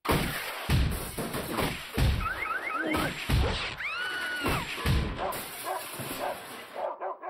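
Cartoon slapstick sound effects: a rapid string of heavy crashes and thumps, with a run of quick rising squeaky whoops and an arching whistle over them, cutting off suddenly at the end.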